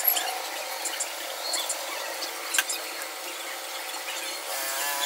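Scraping and rubbing on plastic with several sharp clicks as a hot soldering-iron tip works a small hole through a black plastic project box, and the box is handled.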